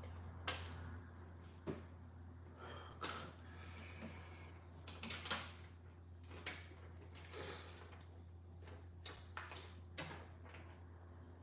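Faint scattered clicks, taps and short scrapes of fingers and small tools handling the parts of an iPhone 11 during a screen replacement, over a low steady hum.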